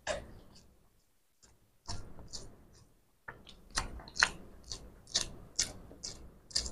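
Close-miked mouth sounds of a man chewing a mouthful of boiled egg: short, irregular wet clicks and smacks that come more often in the second half.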